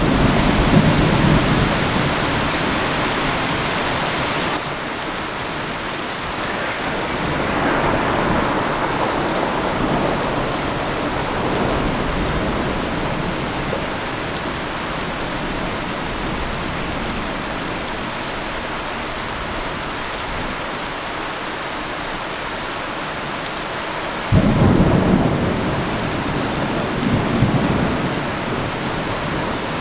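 Steady heavy rain with thunder: a low rumble dies away in the first few seconds, then about twenty-four seconds in a sudden loud thunderclap breaks and rolls on for several seconds.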